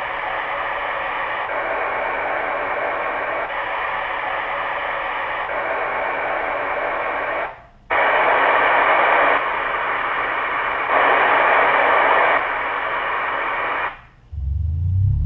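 Steady static hiss like white noise, whose loudness steps up and down several times. It cuts out briefly about halfway through, comes back louder, and stops shortly before the end.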